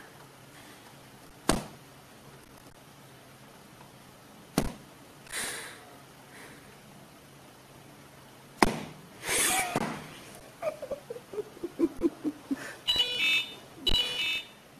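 Three sharp knocks a few seconds apart, then a person laughing in a falling run of short bursts, ending with two high-pitched squeals.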